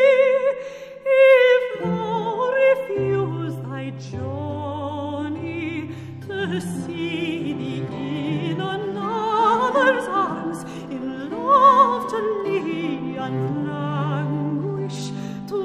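Background music: a classical vocal piece, a singer with heavy vibrato over orchestral accompaniment.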